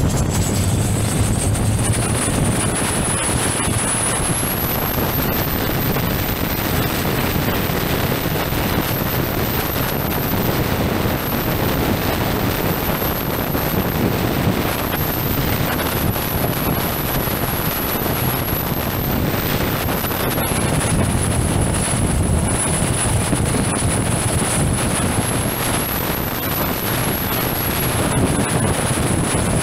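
A Thai longtail boat's turbocharged Isuzu 4JJ four-cylinder diesel, bored out to 3.4 litres, running hard at full speed, loud and steady, with wind on the microphone and the rush of spray. A thin high whine climbs about four seconds in, then dips and rises again several times.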